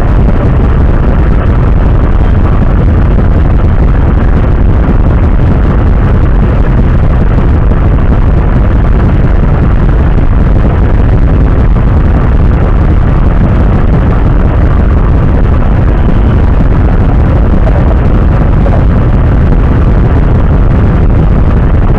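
Yamaha Mio Sporty's single-cylinder four-stroke engine, stock but fitted with a 28 mm Keihin carburettor, idling while the scooter waits in traffic. It comes through as a loud, steady, rough rushing noise on the camera mic.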